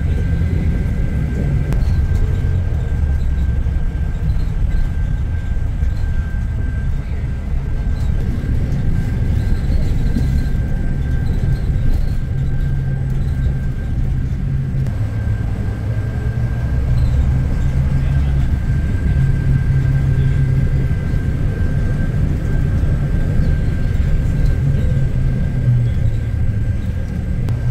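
Steady low engine rumble of a running vehicle or boat, with a thin steady high whine over it.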